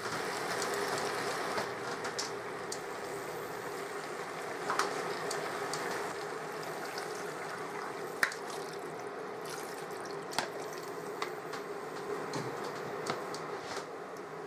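Chicken stock being poured into a hot saucepan of browned chicken and vegetables: a steady hiss of pouring, bubbling liquid, with a few light clicks and taps.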